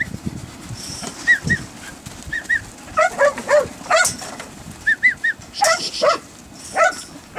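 Working dog barking repeatedly in short, irregular bursts of sharp, high yelps to push a yard of sheep.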